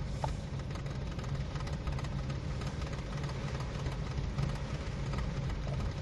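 Nissan Sentra four-cylinder engine idling steadily at about 760 rpm, heard from inside the cabin. The mechanic blames the car's unstable idle on cam timing that has slipped, pointing to a timing-chain fault.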